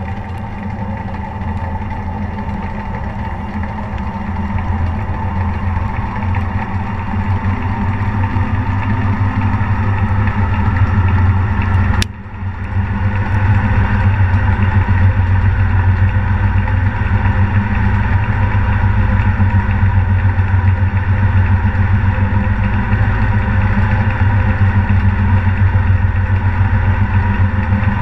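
BEKO washing machine running, heard from inside its turning drum: a strong low hum with a whine that rises in pitch as the drum speeds up, a brief drop and a sharp click about twelve seconds in, then a steady, louder run.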